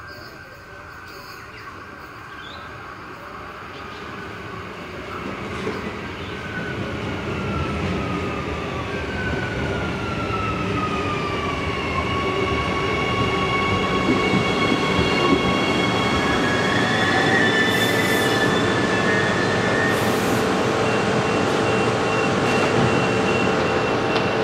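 Adelaide Metro 4000 series electric multiple-unit train arriving and braking to a stop, growing steadily louder as it approaches. Its whine falls in pitch as it slows, then settles into a steady hum while it stands at the platform, with two brief hisses near the end.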